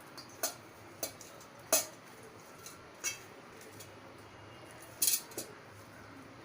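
Light clinks and taps of a utensil against a mixer jar as roasted green chillies are put in: about six short separate clinks, the loudest near two seconds in and a quick double clink about five seconds in.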